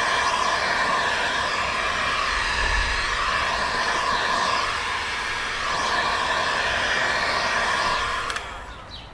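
Electric heat gun running steadily, its fan blowing hot air over tint film on a car taillight to heat it down; switched off about eight seconds in.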